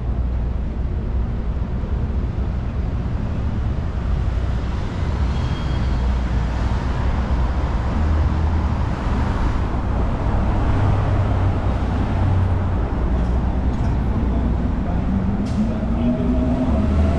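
City street traffic: a continuous low rumble of car engines and tyres, swelling for a few seconds around the middle as vehicles pass.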